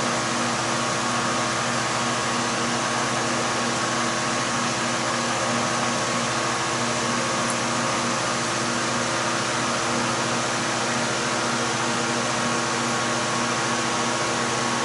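A machine motor running steadily, giving an even hum and whir that does not change.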